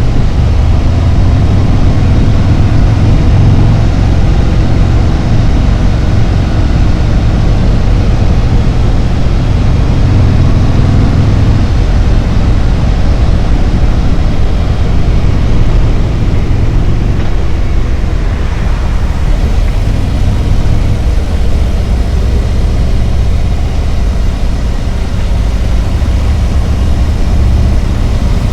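Harley-Davidson Road Glide's V-twin engine running steadily under way, heard from the moving motorcycle, with most of the sound low down.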